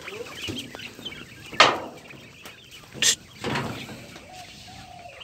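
A flock of young quail chirping and peeping constantly, with three louder brushing noises, about a second and a half in and twice around three seconds in.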